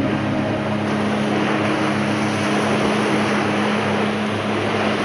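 Motorboat engine running steadily at speed, with a low hum under a constant rush of wind and water.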